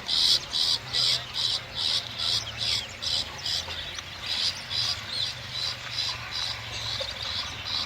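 Shrike giving a rapid series of harsh, rasping notes, about two and a half a second, with a short pause about halfway through, over a faint low hum.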